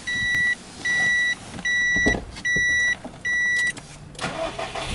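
A car's dashboard warning chime beeping evenly, five beeps of about half a second each. Near the end, the starter cranks the Subaru Impreza WRX STI's turbocharged flat-four engine.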